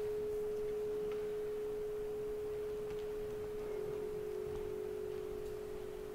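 A single steady pure tone, like a held sine tone, with a second slightly lower tone joining a little past halfway and sounding together with it.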